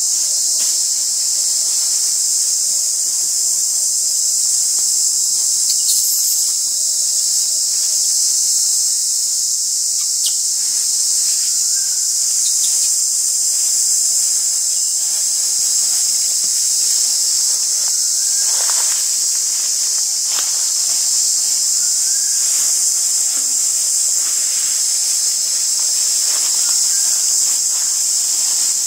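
Steady, high-pitched drone of a forest insect chorus, unbroken throughout, with a few faint clicks and rustles beneath it.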